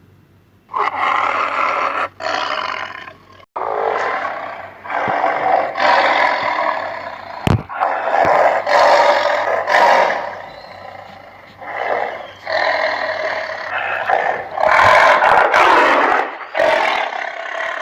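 Tiger roaring and growling, a series of loud calls of one to two seconds each, with a sharp click about seven and a half seconds in.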